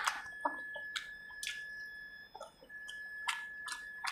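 Close-up eating sounds: a string of short wet smacks and clicks from chewing and from fingers working through fish curry. A thin steady high whine runs behind, breaking off briefly about halfway.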